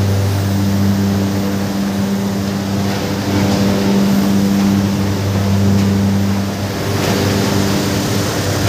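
Sugarcane crushing and feeding machinery running with a loud, steady, low mechanical hum, with a rushing noise over it.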